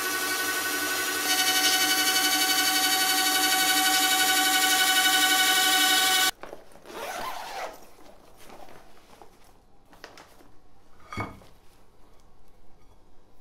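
Machine tool cutting a spinning steel part: a steady, high-pitched machine whine with several ringing tones, louder from about a second in. It cuts off suddenly about six seconds in, leaving soft rustling and a single knock.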